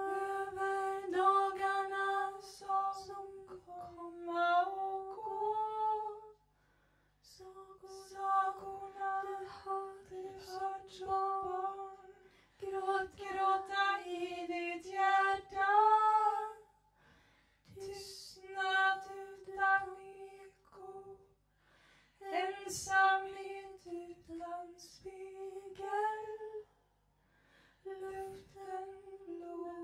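Women's voices singing slow, long held notes in Swedish with no clear accompaniment, in phrases separated by short pauses.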